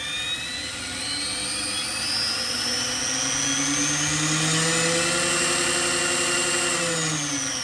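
An SAB Goblin electric RC helicopter's motor and rotor head spooling up on the ground: a whine rising slowly in pitch, levelling off a few seconds in, then starting to fall near the end. The spool-up is slow, a full 12 seconds, because the Hobbywing ESC's bailout did not engage without the throttle cut being used first.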